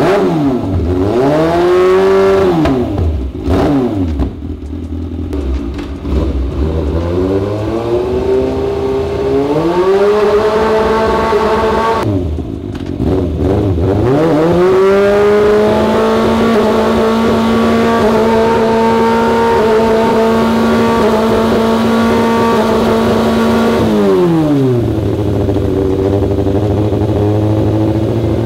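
Kawasaki ZX636's inline-four engine revved on its stand. It is blipped up and down a few times, climbs and dips, then is held at a steady high rev for about nine seconds before dropping back to idle. It is running rough and sputtering, as though a spark plug is dead, which the owner blames on plug leads connected in the wrong order.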